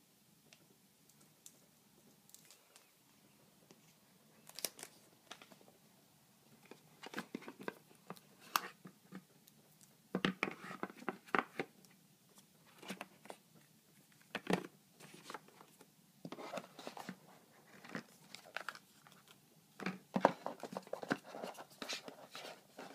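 Packaging being handled: crinkling and rustling of clear plastic wrap with scattered taps and scrapes on the box's cardboard and tray, starting about four seconds in and coming thicker from about ten seconds in.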